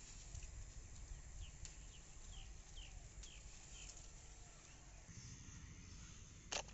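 Faint bird calling, a quick run of about six short falling chirps, over a low steady outdoor background. A single sharp click comes near the end.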